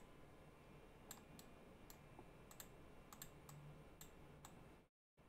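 Faint computer mouse clicks, about ten at an irregular pace, as cut points are placed one by one with Blender's knife tool. The faint room noise behind them cuts out abruptly near the end.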